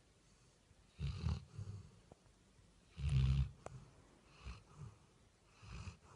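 Labrador retriever snoring in its sleep: two big snores about a second and three seconds in, the second the loudest, then softer snoring breaths near the end.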